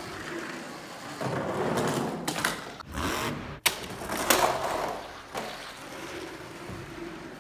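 Toy monster trucks rolling and rattling down a plastic toy track, with several sharp clacks as they knock along it, the loudest about three and a half seconds in.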